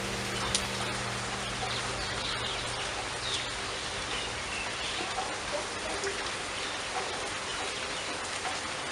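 Steady rain falling, an even hiss of drops, with a few short, high chirps in the background.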